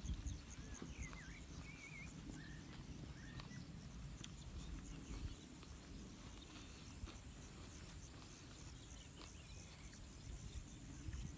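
Faint outdoor countryside ambience: a low wind rumble, with a few short bird chirps in the first few seconds and faint high chirping throughout.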